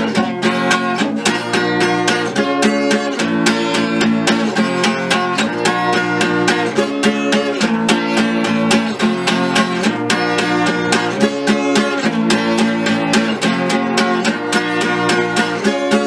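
Instrumental break of a song: acoustic guitar strumming chords in a steady rhythm.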